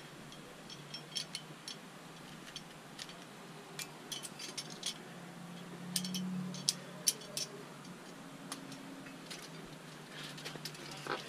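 Metal climbing gear clinking: carabiners and cams on a climber's rack tapping together in scattered, sharp clicks as the climber moves and handles gear.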